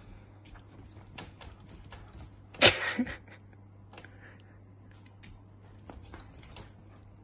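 Golden retriever puppy playing tug with a plush toy on a hardwood floor: scattered light clicks and scuffs of claws and toy, with a loud short burst about two and a half seconds in and a smaller one just after. A steady low hum runs underneath.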